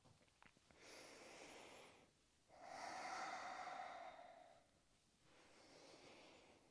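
A woman breathing faintly, paced to her movement. There is a short breath about a second in, then a longer, louder exhalation from about two and a half to four and a half seconds, and a faint brief breath near the end.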